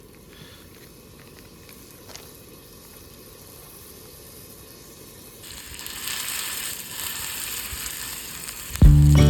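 Food sizzling as it fries in a pan, faint at first and then louder and hissier about five and a half seconds in. Music starts loudly just before the end.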